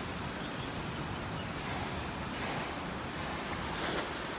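A thrown cast net lands on the water with a brief splash near the end, over a steady rushing background noise.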